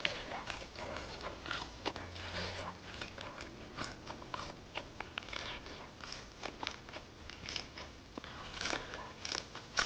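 Close-up biting and chewing of a skewer of deep-fried black stinky tofu: irregular wet mouth clicks and soft crunches.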